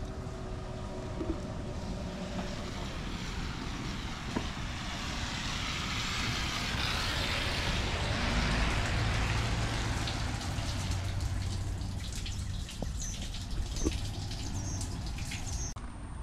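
Vehicle on a rain-wet road: steady low rumble with tyre hiss that swells louder in the middle and eases off, and a few light clicks near the end.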